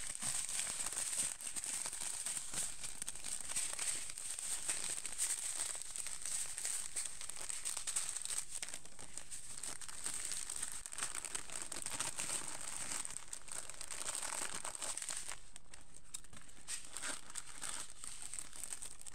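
Clear plastic packaging bags crinkling and crackling as they are handled, with many small crackles in quick succession. It eases off about three-quarters of the way through, with a few more crinkles near the end.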